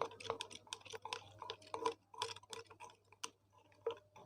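Faint, irregular tapping and clicking on small objects, several light taps a second, some with a short hollow ring.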